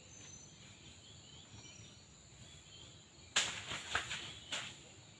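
Faint mountain-forest ambience with a steady high-pitched whine and a few faint chirps. About three and a half seconds in, several sudden close rustles and knocks.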